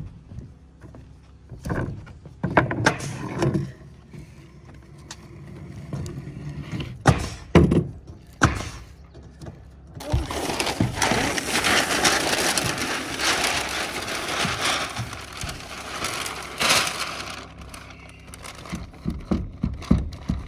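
Self-adhering ice-and-water-shield roofing membrane being unrolled, its paper release liner peeled and handled, giving a dense crackling rustle for several seconds from about halfway through. Before that there are scattered knocks and thumps on the plywood roof deck.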